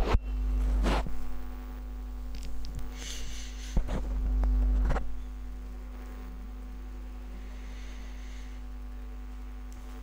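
Steady low electrical mains hum that swells louder twice in the first five seconds, with a few sharp clicks and brief rustles; after that the hum runs on evenly.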